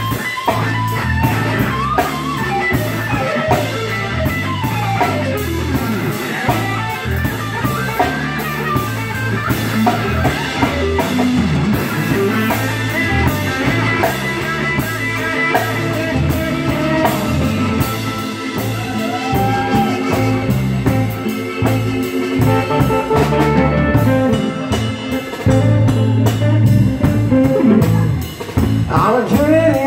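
Live band playing an instrumental passage: a Stratocaster-style electric guitar plays notes that bend up and down, over a drum kit and keyboard.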